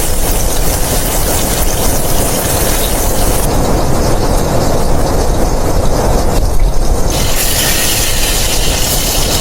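Blizzard wind blowing hard and steadily, with a deep rumble underneath and a high hiss that grows and drops abruptly a few times.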